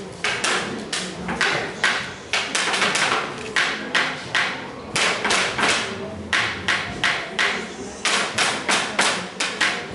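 A run of sharp knocks or thumps, about two to three a second and slightly uneven, keeping on throughout.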